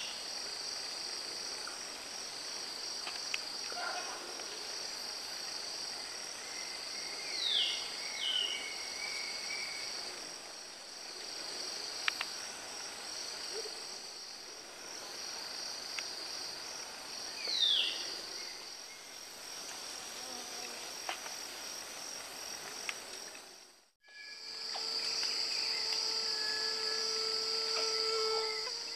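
Steady high-pitched chorus of forest insects, pulsing rapidly without a break. A few short falling whistled calls come over it near the start, twice about a third of the way in, and once more past the middle. Near the end the sound cuts out for a moment, then the insect chorus comes back louder with several steady whistled tones.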